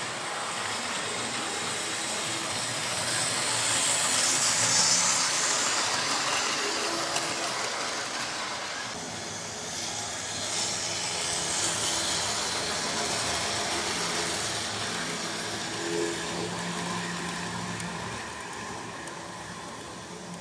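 Model train running on the layout's track: the steady whir of its small electric motor and the rumble of wheels on rail. It grows louder about four seconds in and again around eleven seconds, then eases off near the end.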